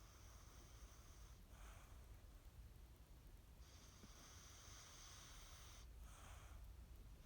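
A sleeping dog breathing faintly and slowly: two breaths, each a long hiss followed by a shorter puff.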